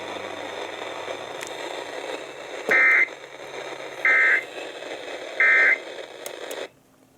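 Emergency Alert System end-of-message (EOM) signal: three short bursts of shrill SAME data tones about a second and a half apart, over steady radio static that cuts off suddenly near the end. It marks the close of the flash flood warning broadcast.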